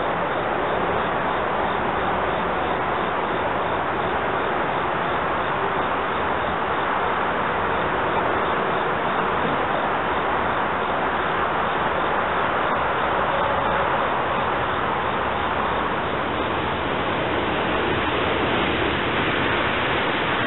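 SEPTA Silverliner IV electric multiple-unit train approaching and rolling into the station, heard as a steady rushing noise.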